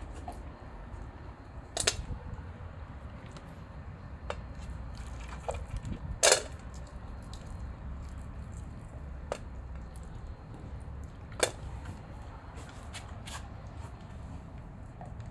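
A few scattered sharp knocks or clinks over a low steady rumble, the loudest about six seconds in.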